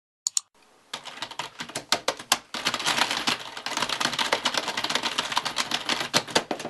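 Fast typing on a computer keyboard: a dense, irregular run of key clicks that starts about a second in, just after a brief click.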